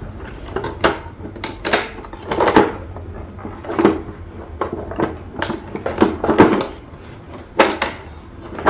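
The hood of a Hoover U4008 upright vacuum cleaner being wiggled loose from the base by hand: irregular knocks, clicks and rattles, the loudest near the end.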